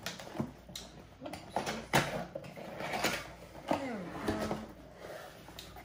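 Cardboard box being opened by hand: tucked-in flaps pulled free and the lid lifted, with scraping and rustling of cardboard and several sharp clicks, the loudest about two seconds in.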